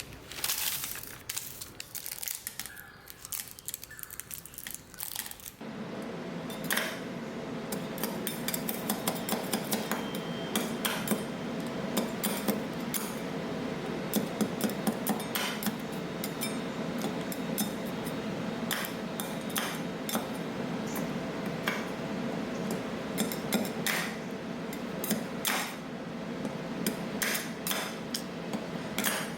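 Metal spatulas tapping, clattering and scraping on the steel plate of a rolled-ice-cream cold-plate machine, chopping hard menthol cough drops into milk. A steady machine hum starts about five seconds in and runs under the tapping.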